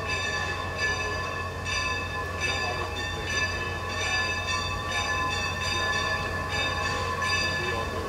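Steam locomotive bells ringing as a line of Shay geared locomotives passes slowly, struck over and over a little more than once a second, with overlapping tones that keep ringing between strikes.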